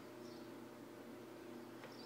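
Faint, short high-pitched bird chirps, about a quarter second in and again near the end, over a steady low hum.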